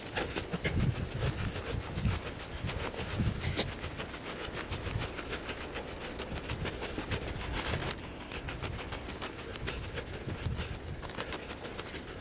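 Footsteps of a hiker walking steadily along a forest trail, each step a soft low thud, with rustling and crunching underfoot.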